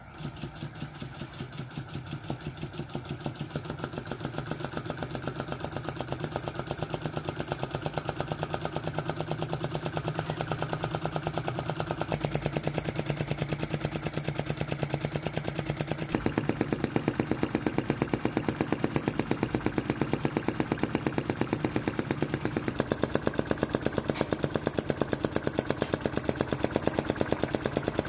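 Flame licker (vacuum) engine built from an old RC model engine, spun to start and then running on a torch lighter's flame, with a quick, even pulse on every cycle that speeds up and grows louder over the first few seconds before settling into a steady rhythm. The jet lighter's flame hisses steadily underneath.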